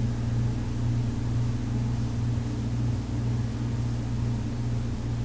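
A steady, unchanging low hum with a hiss over it, like a motor or appliance running.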